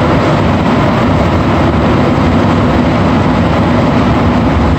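Rubber-tyred Montreal metro train running at speed through a tunnel, heard from inside the car: a steady, loud rumble with a low hum.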